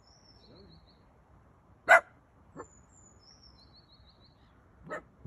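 A dog gives one short, sharp bark about two seconds in and a softer yelp near the end, while small birds sing faintly in the background.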